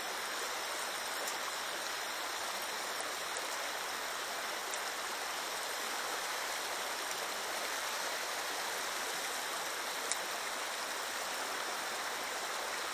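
Shallow creek water running steadily, an even rushing noise.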